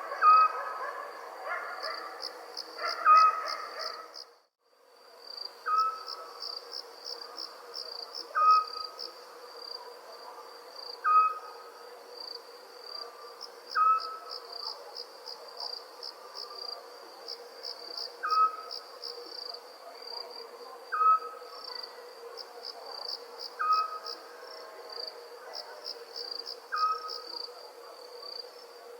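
Crickets chirping in fast pulsed trills, with a short sharp animal call repeating about every two and a half to three seconds over them as the loudest sound. The audio drops out briefly about four seconds in.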